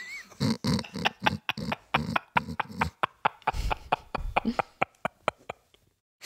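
Laughter in quick pulses, about four or five a second, tailing off about five seconds in.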